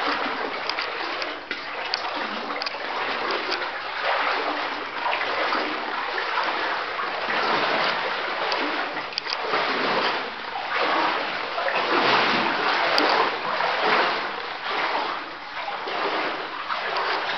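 A person wading through water on the floor of a flooded mine gallery, splashing with each step in an irregular surging rhythm.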